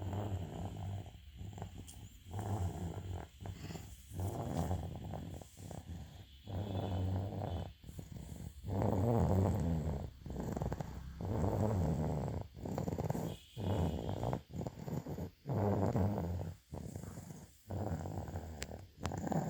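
Snoring: a quick, uneven run of low, buzzing snores, roughly one a second, some longer and louder than others.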